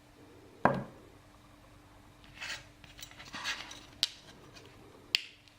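Small metal parts of a Ruko pin-tumbler lock cylinder being handled as it is taken apart after picking: a knock about half a second in, some light scraping, then two sharp metallic clicks.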